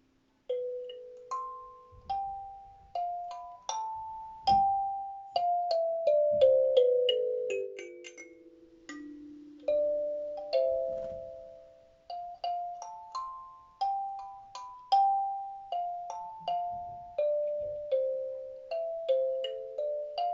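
Kalimba (thumb piano) played slowly: single plucked notes, each ringing out and fading, in gentle melodic runs, including a falling run about midway.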